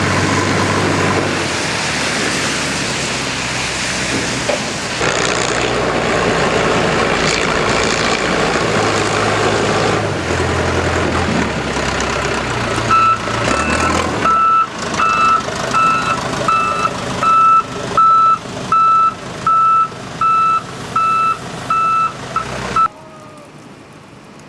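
A large vehicle's engine running, then a backup alarm beeping in a steady repeating pattern, about one and a half beeps a second, as the vehicle reverses. The engine and beeping cut off suddenly near the end.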